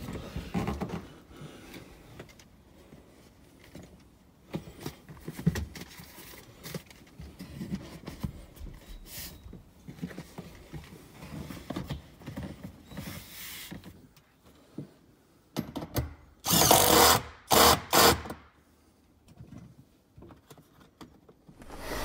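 Cordless impact driver run in three short bursts near the end, driving in a bolt as a Porsche 911's seat goes back in. Before that, scattered knocks and rustles of seat and trim parts being handled.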